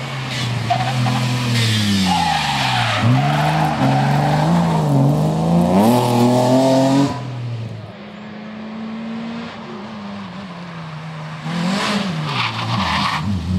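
A BMW E30 rally car driven hard through a bend, its engine revving up and down sharply with throttle and gear changes, with tyre scrabble over it. It cuts off after about seven seconds to a quieter, steadier engine, and near the end a second rally car comes in loud and revs.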